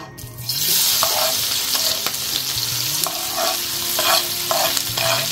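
Chopped onion, garlic, ginger and green chillies hitting hot sunflower oil in a cast-iron wok: a sudden sizzle starts about a quarter second in and keeps frying steadily, with short scrapes and taps of the pieces being pushed into the pan.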